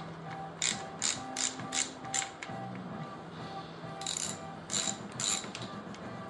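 Ratchet wrench clicking in two short runs as already-loosened bolts are backed out of the engine's lower front.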